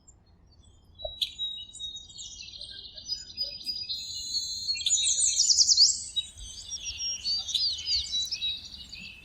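Birdsong: high chirps and rapid trills from several birds, with quick sweeping notes, busiest about four to six seconds in.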